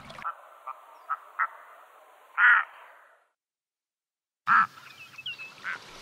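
Black-throated loons giving short croaking calls: a few brief ones, then a louder, longer call about halfway through. After about a second of silence comes another loud call and a few fainter ones.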